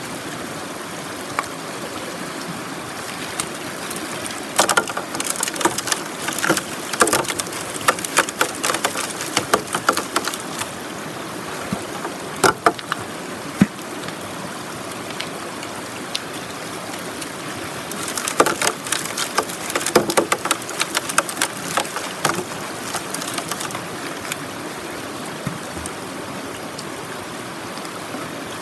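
River water rushing steadily through and around a metal gold sluice box, with two spells of clattering clicks and knocks from stones and gravel being shifted by hand, about five seconds in and again about eighteen seconds in.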